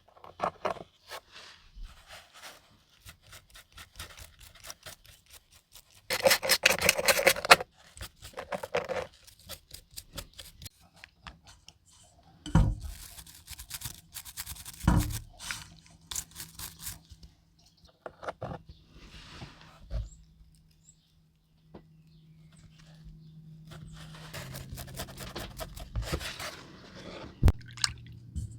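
Small tools and metal parts handled while working on a diecast model car: scattered clicks and knocks with bouts of scraping and rubbing, the loudest scraping stretch about six seconds in.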